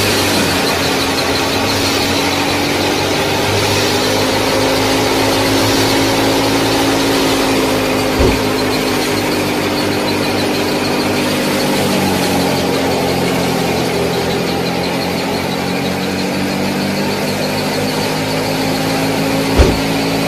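Small motor of a model-scale tractor and its wheat thresher running steadily, with a whine that wavers slightly in pitch over a hiss. There are two sharp knocks, one about eight seconds in and one near the end.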